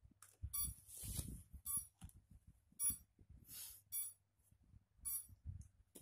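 Xiaomi Mi Drone beeping as it powers up: short electronic beeps about once a second, with low handling knocks and rustling underneath.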